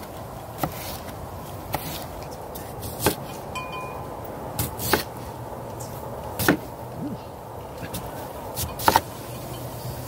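Kitchen knife slicing bell peppers and onions on a wooden cutting board: scattered sharp knocks of the blade meeting the board, irregularly spaced at about one a second, with a quick double knock near the end.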